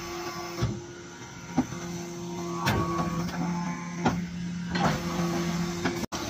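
Hydraulic interlocking clay brick making machine running: a steady hum, with sharp metallic knocks several times as the machine works.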